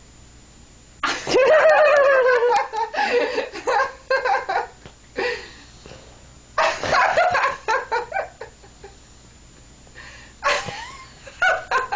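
A child's loud, drawn-out fake yawns, the first about a second in, with bursts of laughter and giggling between them.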